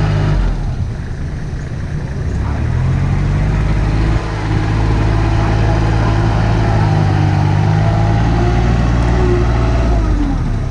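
Dump truck's diesel engine running; its note falls off about half a second in, builds back up over the next few seconds, then holds steady.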